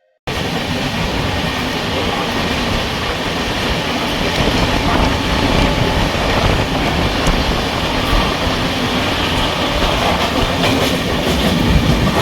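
Passenger train running at speed, heard from aboard: a steady rumble and rush of wheels on the track with clacking, cutting in suddenly just after the start.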